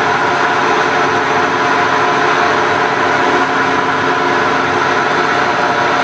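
Wells Index vertical milling machine running steadily in high range with its spindle gearing engaged, making a loud, even gear whine of several held tones. The motor is turned down to about a quarter speed on a VFD, and the head is being run to float it into alignment to cure a high-range engagement problem.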